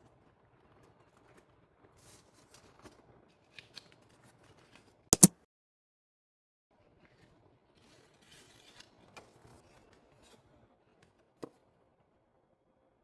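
Light clicks and rustling of packaging being handled and opened, with a sharp double click about five seconds in and a single click near the end.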